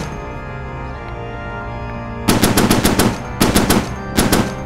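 Church organ music holding sustained chords. About two seconds in it is broken by three short bursts of rapid gunfire in quick succession, each a rattle of several shots.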